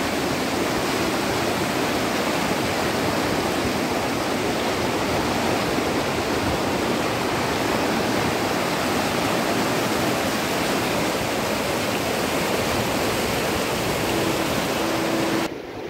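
Floodwater of a river in spate rushing past in turbulent, foaming rapids: a loud, steady rush of water. It cuts off abruptly just before the end.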